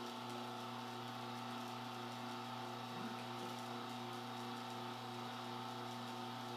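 Horizontal slow masticating juicer's electric motor running with a steady hum while it presses citrus fruit.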